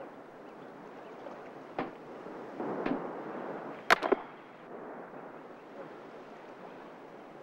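Steady outdoor noise like wind and surf, broken by a few sharp clicks or snaps; the loudest is a quick double snap about four seconds in.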